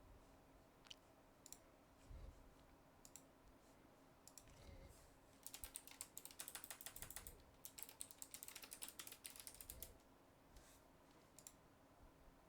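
Computer keyboard typing: a few scattered key presses, then two quick runs of keystrokes about halfway through.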